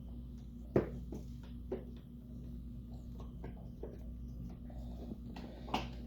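Scattered light clicks and knocks of fan parts being handled while a retaining pin is worked out, the sharpest about a second in and another near the end, over a steady low hum.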